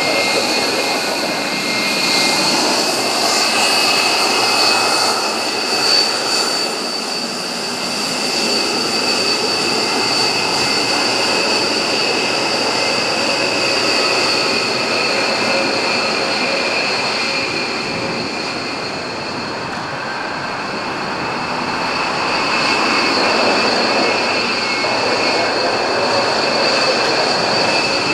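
B-1B Lancer bomber's General Electric F101 turbofan engines running at low taxi power: a steady high whine over a rushing jet noise, swelling and easing slightly as the bomber moves past.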